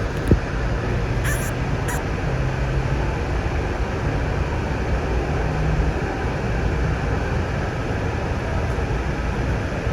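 Sound Transit light-rail train running, heard from inside the car: a steady rumble with a low motor hum that shifts slightly in pitch. A short click comes just after the start.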